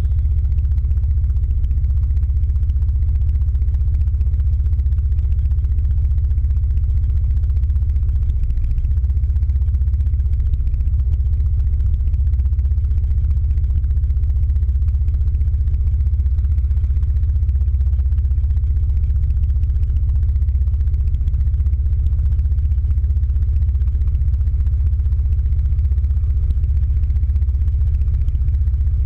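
Scooter engine idling while stopped, a steady low rumble, with the surrounding traffic.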